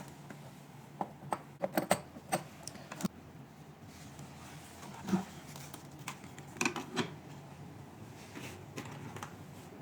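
Scattered sharp clicks and light clatter of small hard plastic and metal parts being handled, as the cooling handle's connector is fitted to the cavitation machine. The clicks come in two clusters, one about a second in and another about five seconds in.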